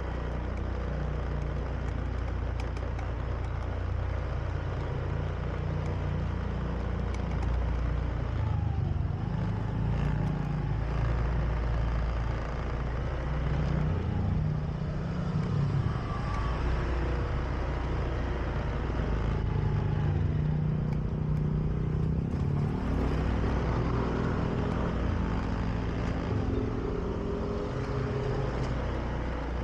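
Honda Beat scooter's single-cylinder engine running under way, its pitch shifting up and down with the throttle, over steady road and wind noise.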